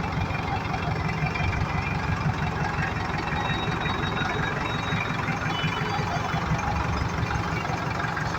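Steady rumble of motor vehicles running in street traffic, with an even hiss over it.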